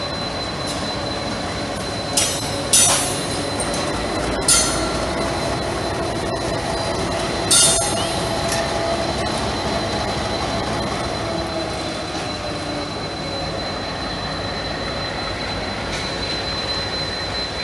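Passenger train rolling slowly over station tracks and pointwork, its steel wheels squealing against the rails: a thin steady high whine with several short, sharp screeches in the first half.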